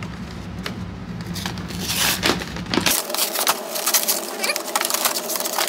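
A cardboard and plastic product box being opened by hand: irregular crinkling, scraping and small clicks. The handling gets busier about three seconds in.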